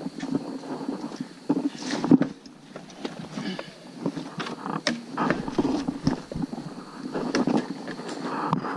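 Footsteps on a muddy forest trail, with irregular scuffs and knocks from the kayak paddle and gear being carried.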